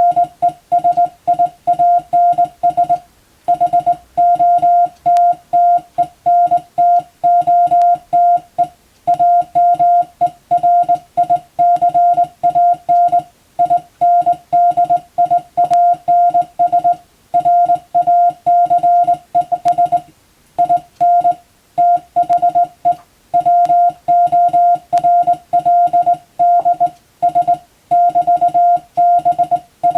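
Morse code: a single steady beep tone keyed on and off in dots and dashes, sent at a brisk even pace, with short breaks between characters and a few longer pauses between words.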